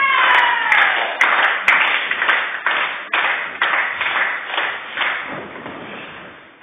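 A shout that falls in pitch, then a run of sharp hand claps, about two a second, echoing in a large hall and fading away over several seconds.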